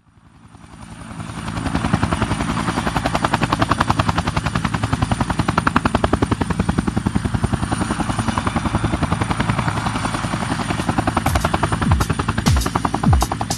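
A rapid, even chopping that fades in from silence over about two seconds, then runs steadily. Near the end, a few deep thumps falling in pitch come in.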